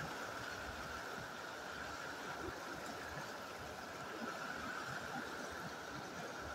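Steady rush of a fast river flowing over rocks.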